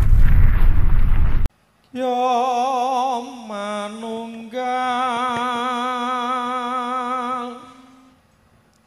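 A loud, noisy intro sound effect cuts off suddenly about a second and a half in. After a brief silence, a man sings a Javanese puji sesanti prayer solo into a microphone. He chants in long held notes with a wavering vibrato, stepping down in pitch between phrases and fading out near the end.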